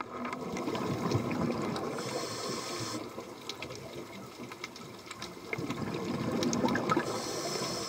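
Underwater sound of a scuba diver breathing through a regulator: gurgling exhaled bubbles, each followed by a short hiss, twice, over a crackle of small clicks.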